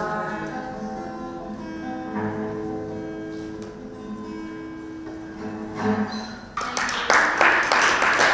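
Acoustic guitar playing the last chords of a song, the notes left ringing, with a final strum near the end. Then applause breaks out, louder than the guitar.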